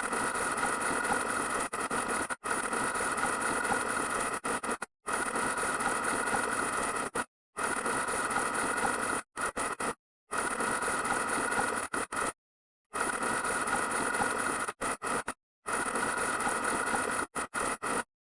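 A harsh, buzzing noise sound effect, repeatedly cut off by abrupt dead-silent gaps, as if chopped and looped in editing.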